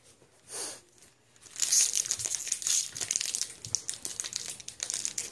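Foil wrapper of a Pokémon booster pack crinkling in the hands as it is gripped and worked open, dense crackling that starts about a second and a half in.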